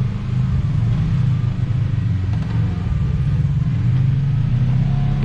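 Side-by-side UTV engine running at low revs, a steady low rumble.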